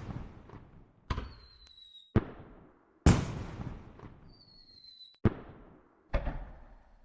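Fireworks going off: five sharp bangs about a second apart, each trailing off in a crackle. Twice a short, slightly falling whistle comes just before a bang, like a whistling rocket.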